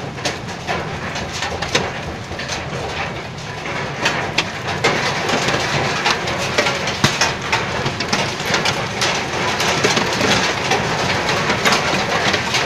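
Heavy hail pelting down: a dense, continuous clatter of hailstones striking hard surfaces, growing heavier and louder about four seconds in.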